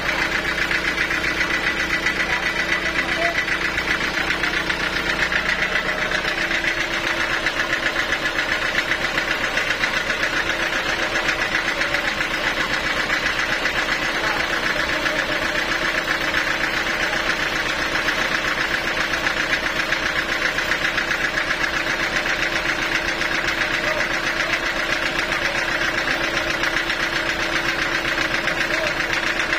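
A portable sawmill running steadily, its engine and saw making a continuous fast-pulsing mechanical sound. A low hum underneath drops out about six seconds in.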